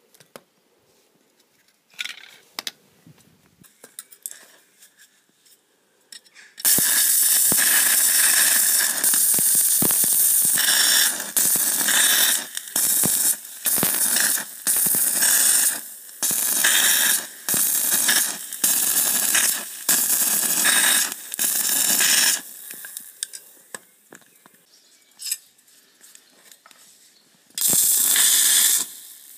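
Battery-powered stick-welding arc from a LiFePO4 bank, crackling and hissing loudly as the rod burns on a steel plate. After a few short crackles, it runs in long loud stretches that keep cutting out briefly as the arc breaks and is struck again, with one more burst near the end.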